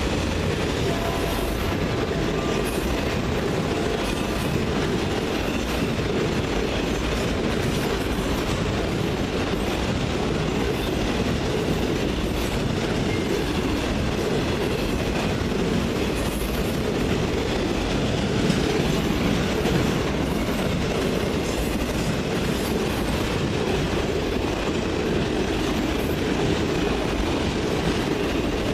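Freight train rolling past at track side: a steady, unbroken rumble of steel wheels on the rails, with no horn.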